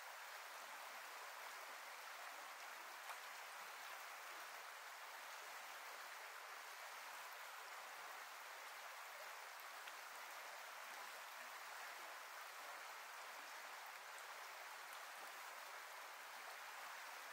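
Faint, steady rush of a river's flowing water, an even hiss with no distinct splashes.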